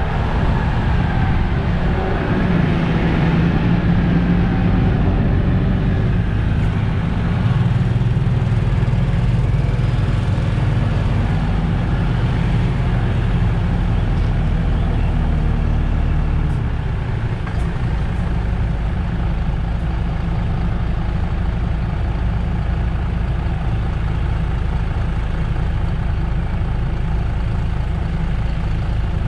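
MAN Lion's City GL articulated bus's engine running under load, its note rising and shifting, then dropping to a steady low idle about 17 seconds in.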